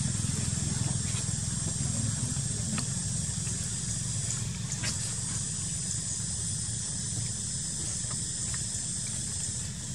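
Steady outdoor background noise: a low rumble and a high hiss, with a few faint clicks.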